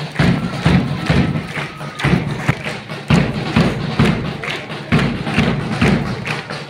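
March music with a steady, heavy drum beat, about two beats a second, played for a march past, with faint voices underneath.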